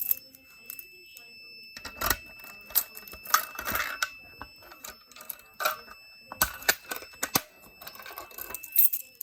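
Gamewell MS-7 manual fire alarm pull station being handled and pulled: a series of sharp mechanical clicks and clacks. A steady high-pitched electronic tone comes on about two seconds in and holds.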